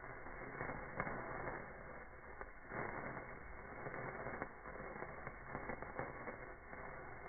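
A handheld sparkler burning, a steady fizzing hiss with scattered small crackles as it throws sparks.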